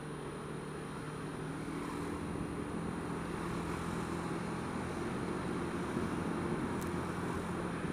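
Honda Dio scooter's engine running under way with a steady hum whose pitch shifts a little, over the rumble of surrounding car traffic echoing in a road tunnel; the sound grows slowly louder.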